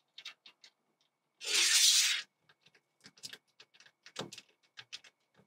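Nut-and-bolt hardware clicking and rattling against an aluminium greenhouse frame rail as bolts are worked along its channel. About a second and a half in comes one loud scrape of metal on metal, lasting nearly a second.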